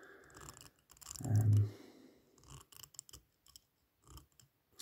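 Light scratching and scattered small clicks from objects being handled, with a short low vocal sound, a hum or murmur, about a second in.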